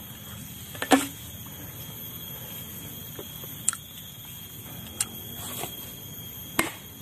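Machete chopping into the husk of a green coconut: four sharp chops, the loudest about a second in and the others spaced a second or so apart near the end. A thin, steady high-pitched tone runs underneath.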